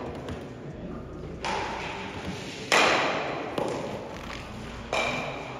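Stocksport stocks knocking: sharp clacks of stocks landing on the lane and striking other stocks, four hits in all, the loudest about three seconds in. Each hit rings on in the hall's echo.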